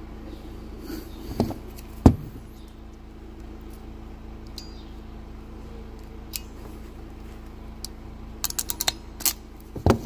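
Sharp metal clicks from handling a pin terminal and hand crimping pliers, then a quick run of about six ratchet clicks near the end as the crimper's handles are squeezed shut on a non-insulated terminal, followed by a couple of louder clicks.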